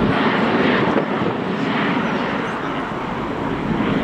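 Aircraft engine noise at an airport: a steady rushing sound without a clear tone, its heavy low rumble dropping away abruptly at the start.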